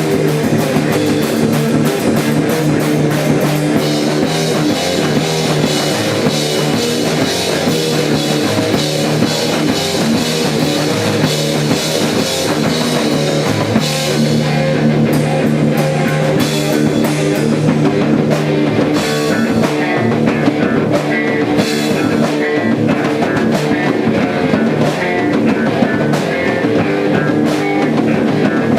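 A rock band playing a song: guitars sounding sustained chords over a drum kit keeping a steady beat, with the cymbal and high end changing about halfway through.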